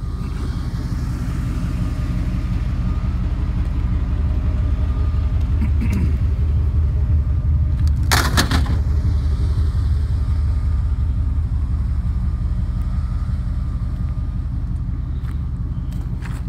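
Motor vehicle engine idling with a steady low rumble that swells slightly in the middle. A brief rattly burst of noise comes about eight seconds in.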